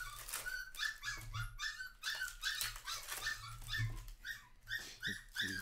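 A small puppy whining in short, high, repeated yelps, about two or three a second. The whining comes from a pup with separation anxiety.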